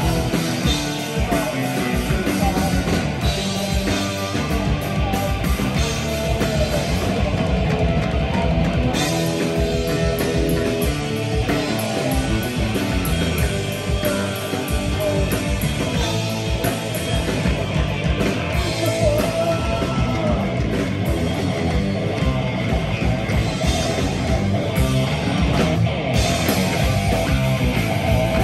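Live heavy metal band playing an instrumental passage: distorted electric guitars and electric bass over fast, driving drum kit.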